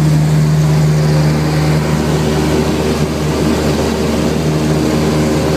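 Cessna 172 Skyhawk's single piston engine and propeller running at a steady pitch.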